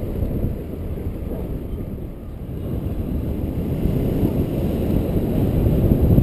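Wind noise from the airflow over a paraglider pilot's camera microphone in flight: a steady low rumble that eases a little about two seconds in and builds again towards the end.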